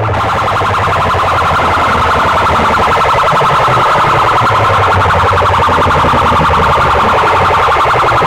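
A massed array of PA horn loudspeakers blasting a loud, distorted siren-like tone that pulses rapidly. It starts suddenly and holds steady.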